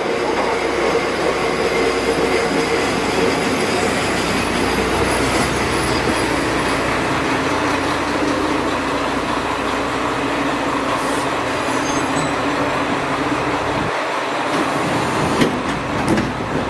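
Two-car Kyoto Tango Railway diesel railcar train pulling into the platform and coming to a stop, its engines and wheels running steadily. A few sharp clicks come near the end.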